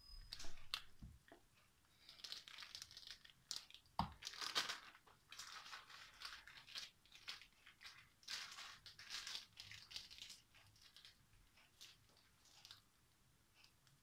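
Plastic piping bag crinkling and rustling in the hands as soft choux pastry dough is pushed into it with a silicone spatula, with one sharp knock about four seconds in. The rustling dies down over the last few seconds.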